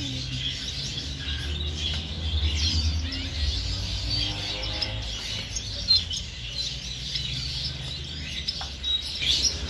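Many small caged birds chirping and twittering at once, a continuous dense chatter of short high calls, over a low steady hum.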